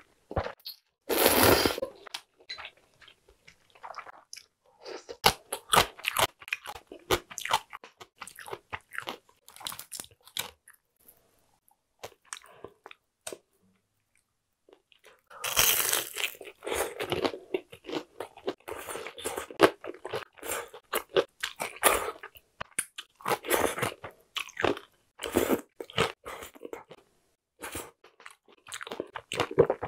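Close-miked eating sounds: a slurp of cold buckwheat soba noodles about a second in, then chewing. About halfway through comes a loud crunching bite into a crispy fried cheese pork cutlet, followed by more crunching and chewing.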